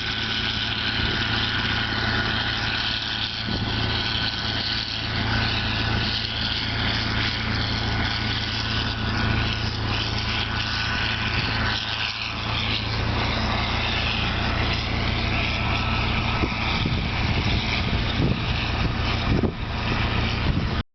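John Deere 4440 tractor's six-cylinder diesel running steadily, with the clatter of a John Deere 567 round baler working behind it and a faint steady high whine over the engine hum.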